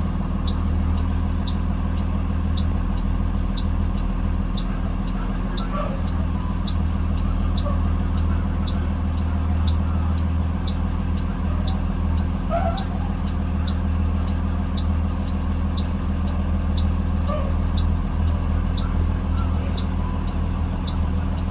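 2020 Blue Bird Vision school bus under way, heard from inside: a steady low engine and road drone, with a light regular ticking about twice a second.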